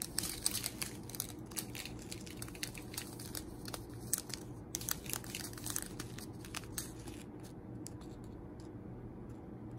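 Thin plastic zip bags of diamond-painting drills crinkling and clicking as a strip of them is handled. The crinkles are thickest in the first half and sparser later, over a steady low hum.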